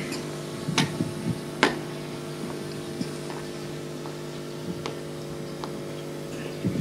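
A steady hum with a few sharp knocks: two loud ones within the first two seconds, then fainter ticks spaced out through the rest.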